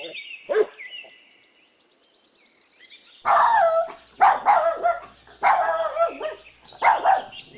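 A dog barking, a run of five barks starting about three seconds in.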